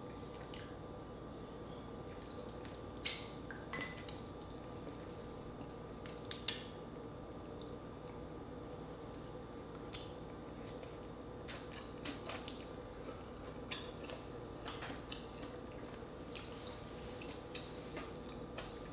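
Eating sounds of green-lipped mussels on the half shell: scattered light clicks and taps of a spoon and shells on a plate and sauce bowl, with soft wet mouth sounds of eating.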